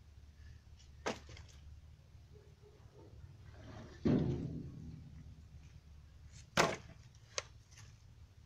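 Cut branches being knocked and dropped onto a woodpile. There is a sharp wooden knock about a second in, a heavier thud about four seconds in that dies away over a second, then another sharp knock and a lighter click near the end. A low steady hum lies underneath.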